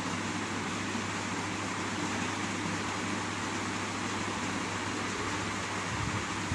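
Steady whirring hiss with an even low hum, the sound of an electric fan running.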